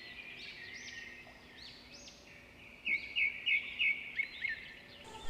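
Small birds chirping repeatedly in the background, with a quick run of louder chirps about three seconds in.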